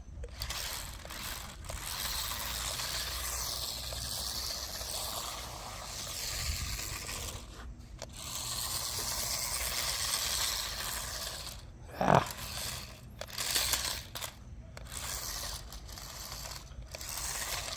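Small electric motors and plastic tracks of a remote-control tracked stunt car driving over rough ground, a whirring, scraping clatter that stops and starts several times, with a brief louder noise about twelve seconds in.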